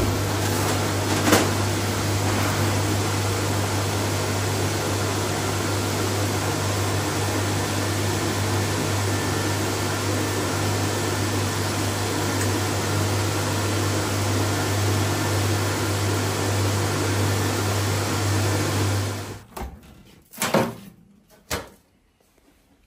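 Electric blower running steadily, a rush of air over a low mains hum, blowing through a grate to air-quench red-hot stainless steel knife blades. It cuts off abruptly near the end, followed by a couple of brief handling knocks.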